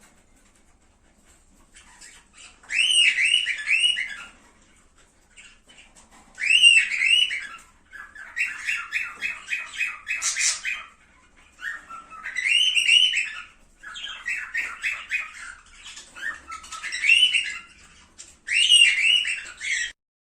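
Cockatiel singing: short phrases of rising and falling whistled notes repeated every second or two, with a run of fast repeated chirps around the middle. The singing starts after a pause of about two seconds and stops just before the end.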